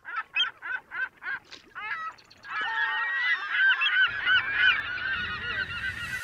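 A flock of birds calling. First comes a quick run of separate calls, then many birds call over each other from about two and a half seconds in.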